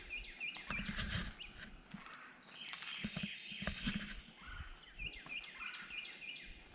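A songbird singing runs of quick repeated chirps, about four to a second, with a few low thumps and scrapes near the microphone.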